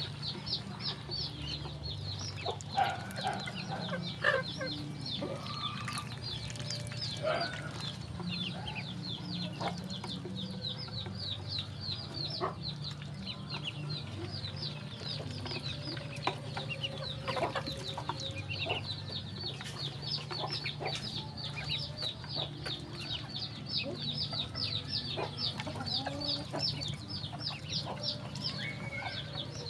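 A group of ducklings peeping nonstop, many short high calls a second, each dropping slightly in pitch, as they feed. Scattered light ticks come from bills pecking at a hanging tube feeder, over a low steady hum.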